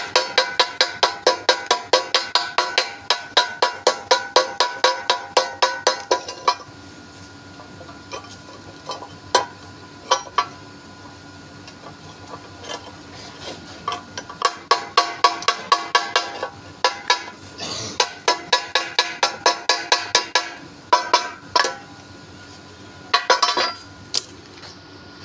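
Rapid ringing metal-on-metal strikes of a chipping hammer on welded steel test plates, about five a second, chipping slag off the weld. The hammering stops about six seconds in and comes back later in shorter runs, with a few single strikes between.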